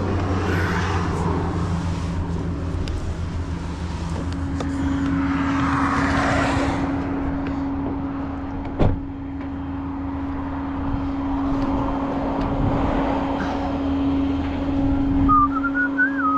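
Tow truck running: a steady low hum, joined about four seconds in by a steady drone. There is one sharp click about nine seconds in and a brief warbling chirp near the end.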